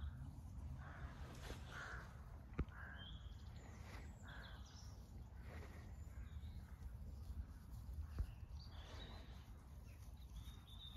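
Quiet open-field ambience: a low steady wind rumble with scattered faint bird calls, and two soft knocks, one about two and a half seconds in and one about eight seconds in.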